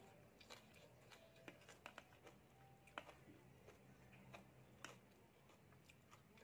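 Faint eating sounds: chewing rice noodles, with scattered small clicks as a fork works in the plate, the sharpest about three seconds in and just before five seconds.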